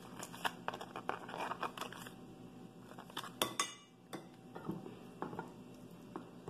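A metal spoon scraping as it spreads chipotle mayonnaise dressing over a tostada, with light clinks of the spoon against a glass dish and the plate. A few sharper clinks come about halfway through.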